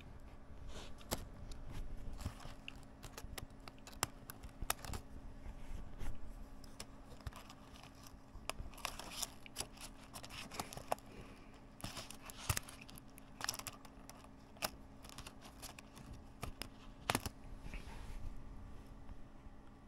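A laptop keyboard being pulled apart by hand: its thin backing sheet and membrane film tearing and crinkling, with irregular snaps and clicks of plastic keycaps and scissor clips coming loose.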